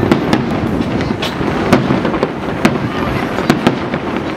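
Aerial fireworks going off: a string of sharp bangs at irregular intervals, sometimes two or three within a second, over a steady background noise.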